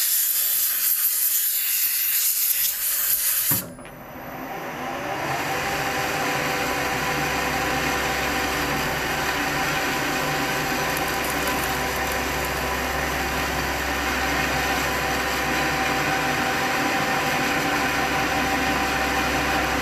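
Compressed-air blow gun hissing for about three and a half seconds, clearing chips from the steel workpiece in the lathe. The metal lathe then starts, winds up over a couple of seconds and runs steadily with a whine of several tones while the tool cuts into the groove in the steel.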